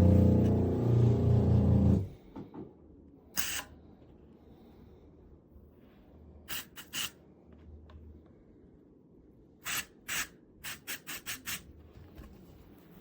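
Music with a deep, gong-like tone that stops about two seconds in, then a quiet stretch broken by short, sharp clicks: one near 3.5 s, a pair near 7 s and a quick run of six or seven from about 10 s.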